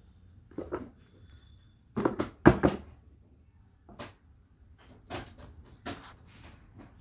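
Handling noise from a heavy brass conch-shaped antique being turned over and moved: scattered knocks and clunks, with the loudest cluster two to three seconds in and single knocks after it.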